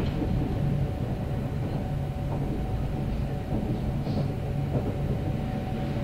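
Kintetsu 9030 series electric train heard from inside the passenger car while running between stations: a steady rumble of wheels on rail with a steady motor hum and a few faint clicks from the track.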